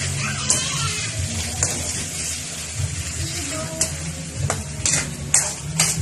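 Chicken, potato and carrot pieces sizzling in a metal wok while a metal ladle stirs them, scraping and clinking against the pan several times, with a steady low hum underneath.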